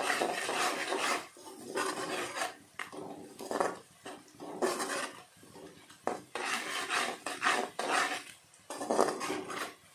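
Perforated metal spatula scraping and stirring onions and green chillies frying in oil around a metal kadhai, in repeated strokes with short pauses between them.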